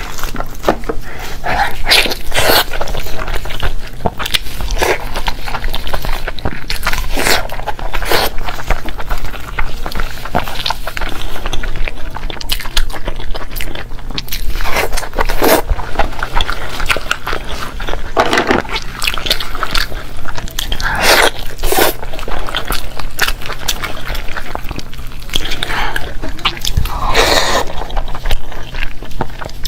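Close-miked eating: irregular biting and chewing with crunchy, wet mouth sounds.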